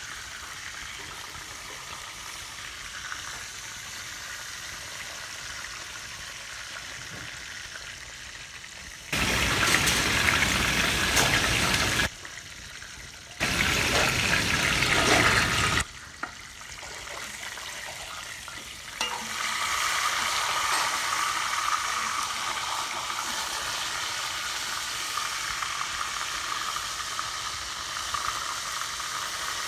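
Pork stomach deep-frying in hot oil, a steady sizzle. About nine seconds in, two loud rushing noises of a few seconds each cut in and out abruptly. The sizzle grows louder again about nineteen seconds in.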